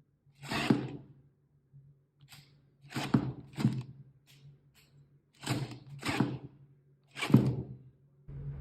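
A series of about eight separate knocks, irregularly spaced over several seconds, each with a short ring, over a steady low hum.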